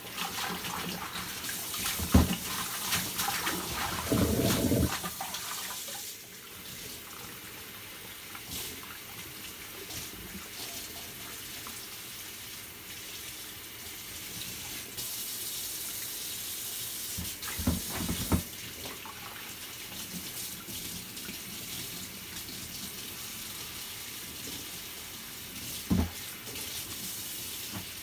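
Kitchen tap running into a plastic basin in a stainless steel sink while hands swish and rinse a bunch of paragis (goosegrass) in the water, with splashing and a few short knocks.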